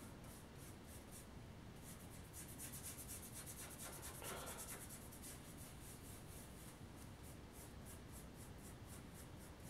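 Faint, quick scratchy strokes of a nearly dry paintbrush dragged back and forth over a painted model road surface: dry-brushing, several strokes a second.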